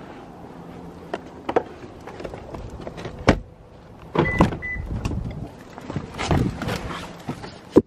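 A car door being opened by its handle with a click, two short electronic beeps, rustling as someone climbs into the seat, and the door shutting with a sharp knock at the end, after which the sound turns muffled and quiet.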